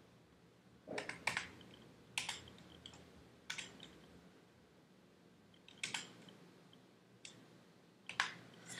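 Key presses on a Logitech G13 gaming keypad: about seven separate clicks, spaced irregularly a second or two apart, some in quick pairs.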